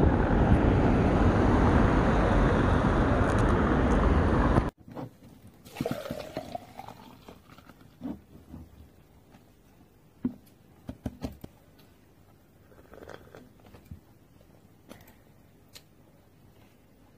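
Loud steady rushing noise, like street traffic, cuts off abruptly about five seconds in. After it there is quiet with scattered small clicks and crunches, as of someone eating.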